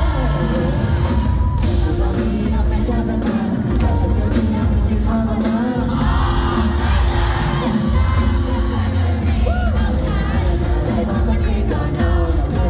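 Live pop-rock band performing a song with a singer over heavy bass and steady drums, with the audience yelling and cheering along.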